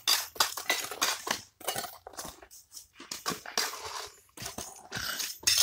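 A plastic bucket scraped and scooped through a pile of wet cement-and-gravel mix and tipped out, a run of irregular gritty scrapes and crunches.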